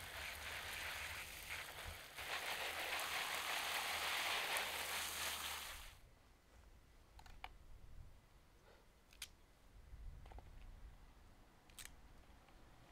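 Garden hose spraying water onto freshly pulled carrots and green onions on grass, a steady hiss that cuts off about six seconds in. After it, a few sharp clicks and rustles as the vegetables are trimmed with a knife.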